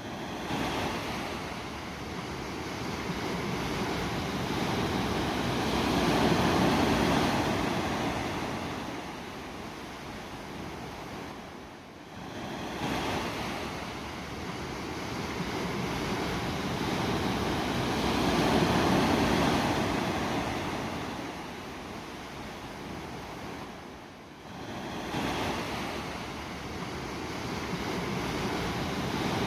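Sea waves washing in and drawing back, swelling and fading in slow cycles about twelve seconds apart.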